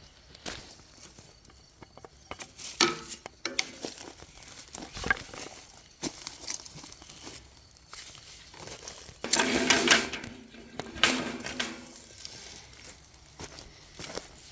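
Footsteps crunching through dry leaf litter on a forest path, uneven and crinkly. About nine seconds in there is a louder stretch of a couple of seconds with a low pitched tone mixed in.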